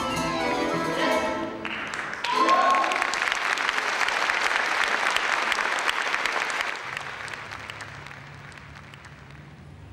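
A live folk ensemble's music ends on a final note about two seconds in, a short cry rings out, and the audience breaks into applause. The clapping fades out about seven seconds in, leaving a faint low hum.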